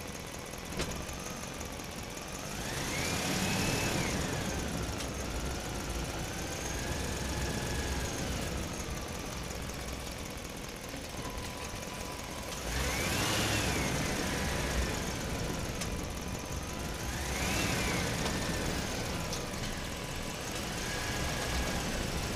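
A motor vehicle engine running, revving up and dropping back about four times.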